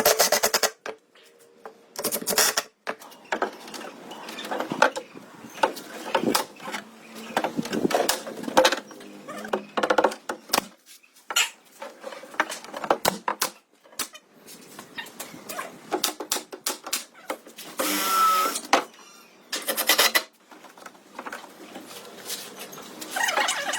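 Irregular knocks, taps and short scraping sounds of hand work on wood panels, with a brief higher-pitched squeak about eighteen seconds in.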